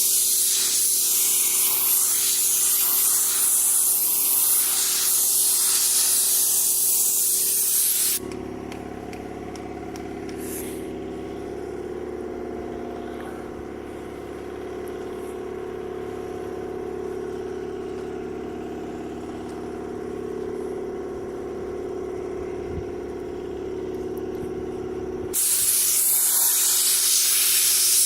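Paint spray gun hissing for about eight seconds, then stopping, leaving a steady low hum, then spraying again near the end.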